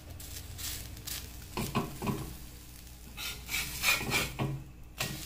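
A metal spatula scraping across a flat griddle (tawa) as it is slid under a frying bread omelette, over the sizzle of hot oil.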